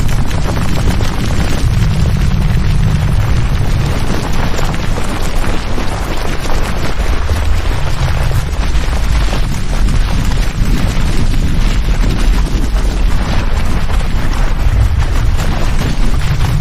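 Flowing-magma sound effect: a loud, continuous deep rumble that swells and eases, with dense crackling and hiss over it.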